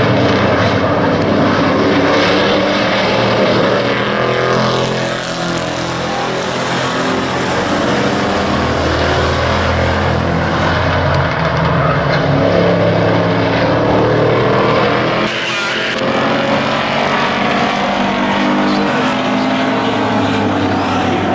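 Several hobby-class race pickup trucks running around a short oval track, their engines overlapping in a steady, loud mix of pitches.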